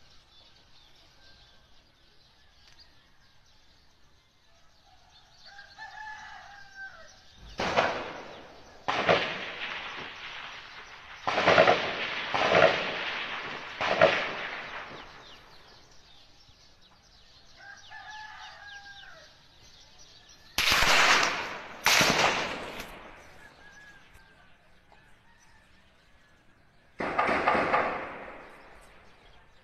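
Distant gunshots: about eight single shots at irregular intervals, each a sharp crack followed by a rolling echo lasting about a second. Two are close together past the middle, and a bird call sounds twice in the lulls.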